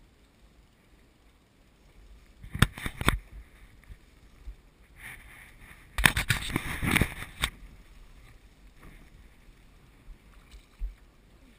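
Choppy sea slapping against the hull of a small open boat: two clusters of sharp knocks and splashes, the first short and the second longer, with a few lighter knocks later.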